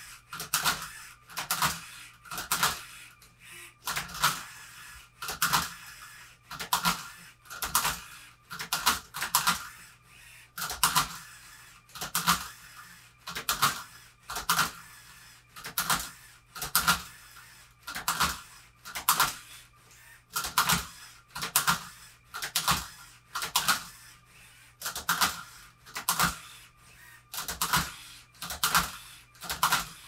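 LEGO MINDSTORMS Robot Inventor MindCuber-RI robot working a Rubik's Cube: its motors whir and the plastic mechanism and cube clatter in short bursts, about one a second, as it turns and tips the cube through a solve.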